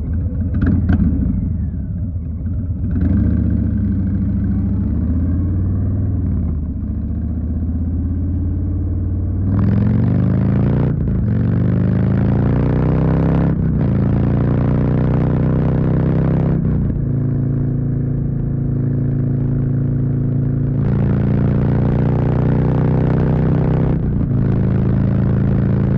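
2020 Harley-Davidson Street Bob's Milwaukee-Eight 107 V-twin running at low speed, then about ten seconds in accelerating away up through the gears, the pitch climbing and dropping back at each shift, before running at a steadier speed. A few clicks at the very start.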